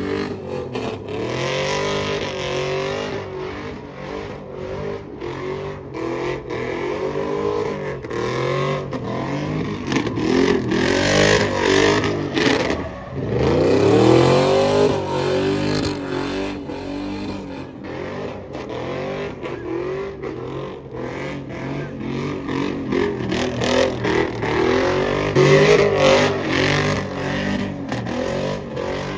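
Pickup truck engine revving hard and falling back again and again, with tires spinning and squealing through smoky burnout donuts.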